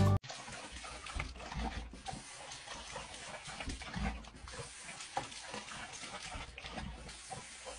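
A dog making short, irregular low sounds over a faint background hiss.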